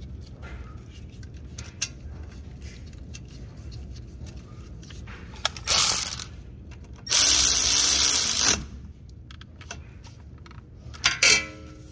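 A power tool runs in short bursts: a brief one about six seconds in, a longer one of about a second and a half soon after, and another brief one near the end. Light clicks of metal parts fall between them.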